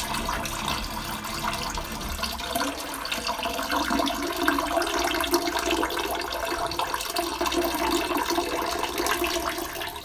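A man urinating against a tree trunk: a steady, splashing stream of liquid.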